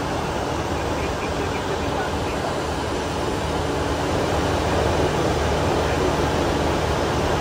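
Steady rushing air noise on the flight deck of a Boeing 747-400 in flight, with a low hum underneath, growing slightly louder about halfway through.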